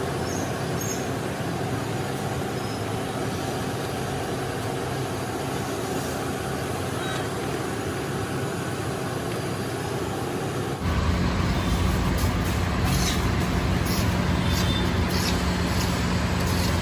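Steady street noise with traffic. About ten seconds in it jumps louder, with a low steady hum and scattered light clicks and taps.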